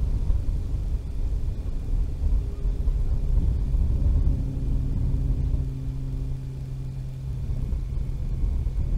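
Uneven low rumble of wind buffeting an outdoor microphone, joined about halfway through by a steady low hum.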